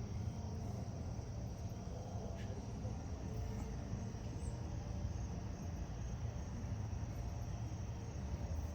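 Quiet, steady background ambience: a low rumble with a faint, steady high-pitched whine over it.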